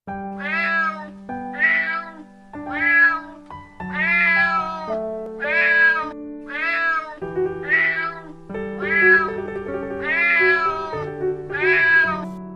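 A cat meowing about ten times in an even series, roughly one meow every second and a bit, each call rising and then falling in pitch, over keyboard music with held notes.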